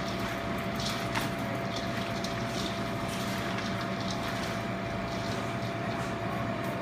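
Steady mechanical hum of kitchen machinery with a constant held tone, and over it the faint, irregular rustle and crunch of shredded cabbage slaw being tossed by gloved hands in a stainless steel bowl.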